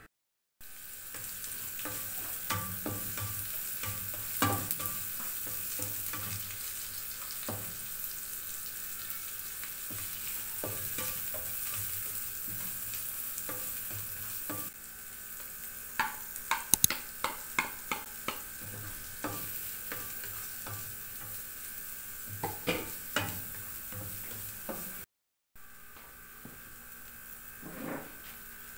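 Chopped onions sizzling in oil in a nonstick frying pan, stirred with a spatula that scrapes and taps against the pan. The taps come in quick clusters in the second half, and the sizzle breaks off briefly near the end.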